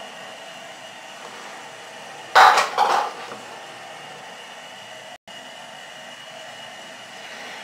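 Steady background hiss with one short clatter about two and a half seconds in: a metal teaspoon knocking against glass jars as salt is spooned in.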